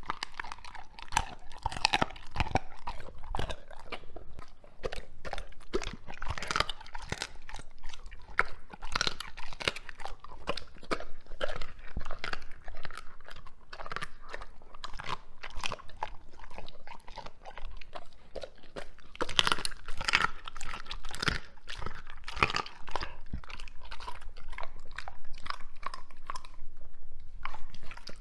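A Doberman chewing raw chicken: a dense run of wet, irregular crunches and bites, with a short pause near the end.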